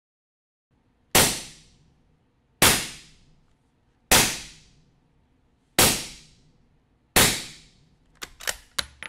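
Five suppressed rifle shots of subsonic 200-grain 300 Blackout through a Dead Air Sandman K suppressor, about a second and a half apart, each a sharp crack with a short decaying tail, metering about 129 to 132 dB peak at mid-gun. A quick string of lighter clicks follows near the end.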